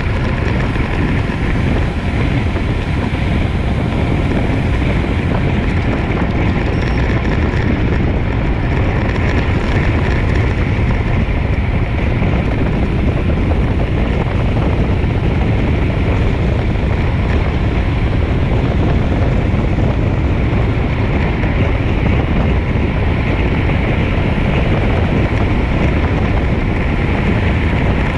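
Steady, loud wind noise from air rushing over the microphone of a camera riding on a road bike at race speed.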